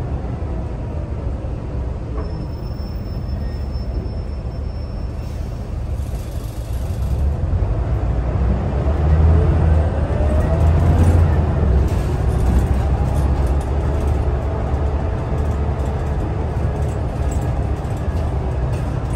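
Scania L94UB city bus's rear-mounted engine and drivetrain heard from inside the passenger cabin while driving: a steady low rumble. From about eight seconds in it grows louder, with a rising whine as the bus gathers speed.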